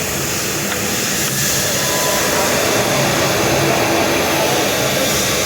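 Steady whirring noise like a blower or fan running, unbroken throughout.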